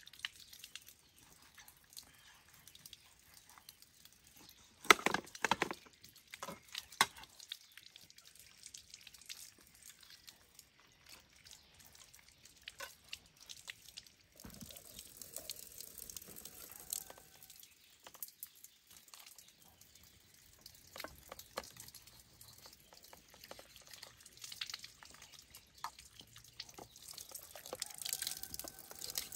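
Water running from an outdoor standpipe tap and splashing onto the ground as vegetables are rinsed under it, heard mostly from about halfway in and a little louder near the end. Scattered light clicks and knocks run through it, and a brief clatter of sharp knocks about five seconds in is the loudest sound.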